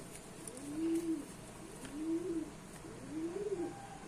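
Domestic pigeon cooing: a run of low coos, each rising then falling in pitch, repeated about once every second and a bit.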